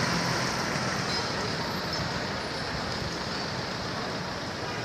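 Steady city street noise: road traffic and the hum of a crowd blending into an even hiss, with no single sound standing out.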